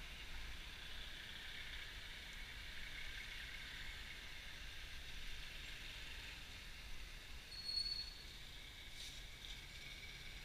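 Muffled, steady street and vehicle noise, with a short high squeal about eight seconds in and a couple of faint clicks after it.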